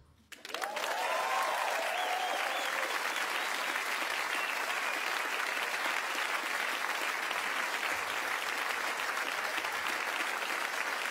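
Theatre audience applauding steadily, the clapping breaking in suddenly about half a second after a brief silence, with a short cheer from a voice about a second in.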